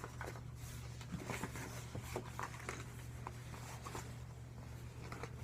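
Faint rustling and light taps of small fishing tackle items and packages being handled and set down, over a steady low hum.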